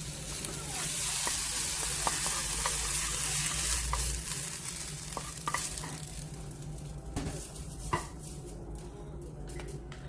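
Food frying in hot oil in a pan, sizzling, while a utensil stirs it with small scraping clicks. The sizzle thins out after about six seconds, and there is a single knock near the end.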